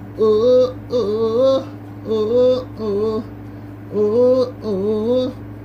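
Pop song: a singing voice in six short melodic phrases with brief gaps, over a steady low hum.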